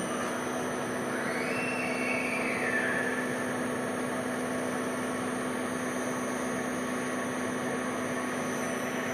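Takisawa TC-203J CNC lathe running with a steady machine hum. A higher whine rises about a second in, holds, then drops back around three seconds in.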